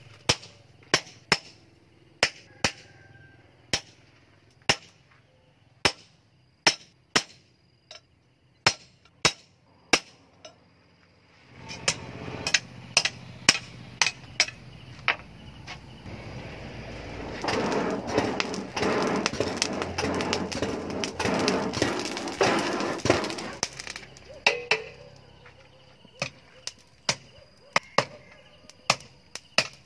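Hand hammer striking a hot steel knife blank on an anvil: sharp, separate blows about one to two a second, with a busier, noisier stretch of quicker blows through the middle.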